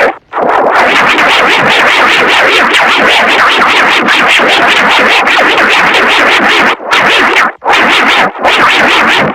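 Emergency alert system (EAS) alarm: a loud, harsh, noisy sound pulsing rapidly and evenly, with a brief cut right at the start and three short breaks near the end.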